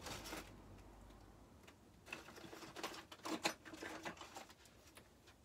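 Faint, irregular clatter and rustling of small items being shifted about while someone rummages through boxes of craft supplies, a handful of light clicks and knocks.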